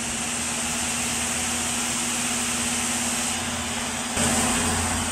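Electric fan running on high: a steady hum with a rush of air noise, louder from about four seconds in.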